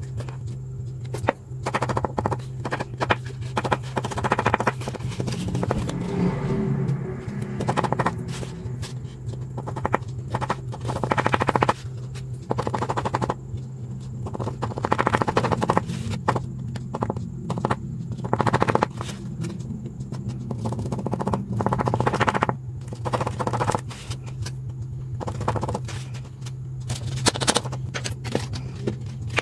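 Close-up crackling and scraping of stiff paper being bent, glued and pressed into a ring, with bursts of quick scratchy strokes from a coloured pencil against the paper. A steady low hum runs underneath.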